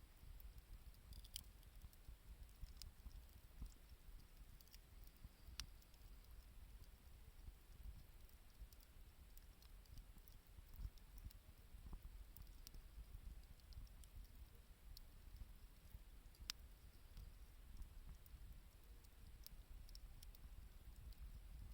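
Wood fire burning quietly, with faint scattered crackles and a few sharp snaps of the burning wood a few seconds apart.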